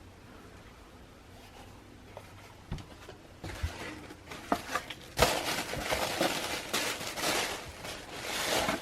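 Sneakers and their packaging being handled: quiet at first, then a few knocks about three seconds in, followed by rustling and clicking that grows louder from about five seconds in.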